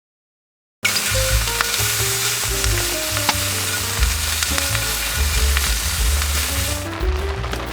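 Background music with heavy bass and a simple stepping melody, starting about a second in, over a loud steady hiss that cuts off near the end.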